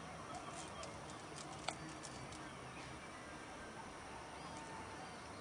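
Faint outdoor ambience with a few scattered bird calls and a single sharp click just under two seconds in.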